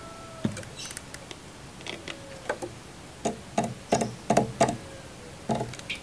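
Light taps and knocks in a bamboo bird cage housing a puter (ringneck dove). A few come scattered at first, then a quick run of about half a dozen past the middle and one more near the end.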